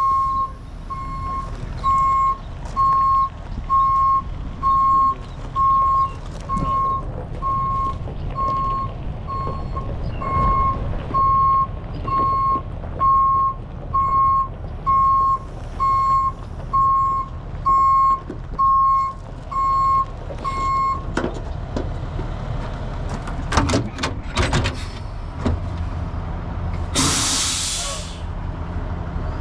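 Heavy tow truck's back-up alarm beeping steadily at one pitch over its diesel engine running, the beeping stopping about 21 seconds in. A few knocks follow, then a short loud hiss of air brakes near the end.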